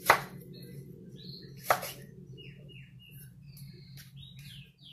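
Kitchen knife chopping through a tomato onto a wooden cutting board: two sharp knocks about a second and a half apart, the first at the very start. Later, a few short, high chirps that fall in pitch sound over a steady low hum.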